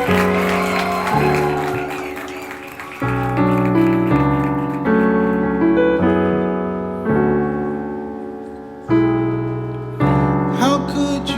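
Keyboard (piano sound) playing slow chords, a new chord struck about every second or two and each left to ring and fade.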